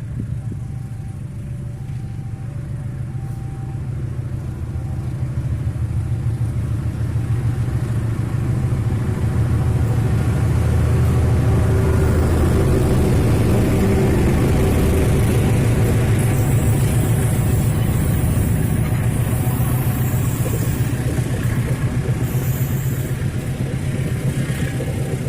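Diesel locomotive-hauled train going past on the track: a steady low engine rumble that builds to its loudest about halfway through and then eases off, with a higher hiss of rail noise joining in the second half.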